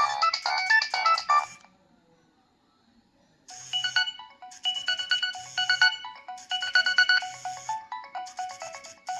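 Nokia 3120b preloaded ringtones: one melody of electronic notes stops about a second and a half in. After a short pause another ringtone begins, a repeating phrase of bright notes over short low bass notes.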